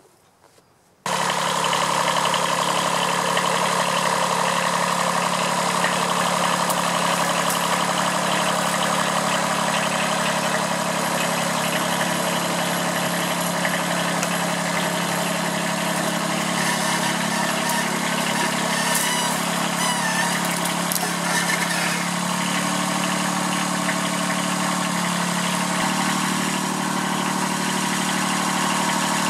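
Small Kubota B7001 diesel tractor engine running steadily under load as it hauls the hoist cable through the pulley. The sound cuts in abruptly about a second in, and its note shifts slightly about three-quarters of the way through.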